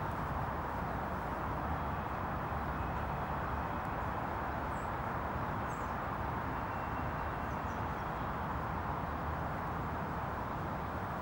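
Steady outdoor background noise, a constant hiss over a low rumble, with a few faint, short, high bird chirps about halfway through.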